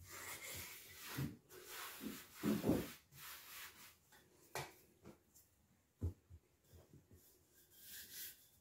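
Hands brushing and rubbing flour across a floured work surface in a series of scraping strokes, with a few soft knocks of hands and dough on the table.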